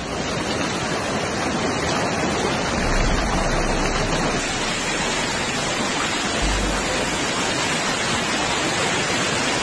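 Heavy hailstorm: hail and rain coming down hard on cars and pavement, a dense, steady rushing noise.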